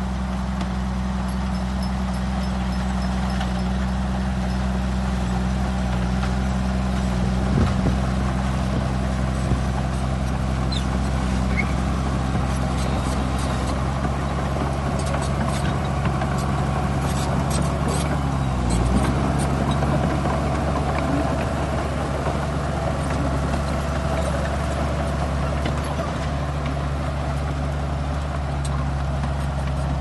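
Heavy diesel engines of crawler bulldozers running under load in a steady, low drone. Their pitch dips and recovers briefly about two-thirds of the way through.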